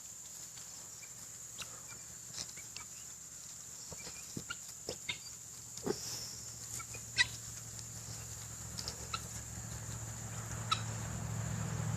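Domestic fowl clucking and calling in short, scattered notes, a few louder calls around the middle.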